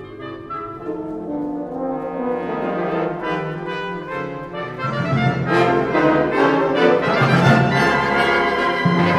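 A concert wind band playing an overture live, with the brass to the fore. The full ensemble swells louder about five seconds in.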